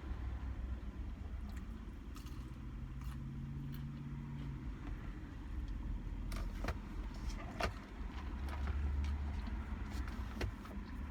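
Steady low rumble inside a car, with a brief low hum a couple of seconds in and scattered clicks and rattles in the second half.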